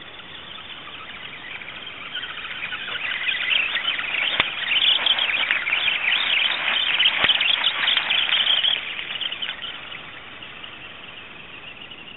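R/C rock crawler's electric motor and gears whining as it drives over gravel. The high whine swells to its loudest in the middle and then fades, with a couple of small knocks along the way.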